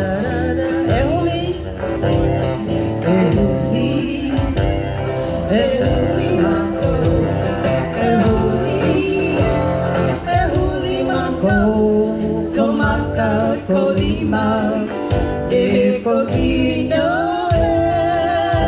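Live Samoan song for a dance: singing with vibrato over guitar accompaniment and a steady bass beat.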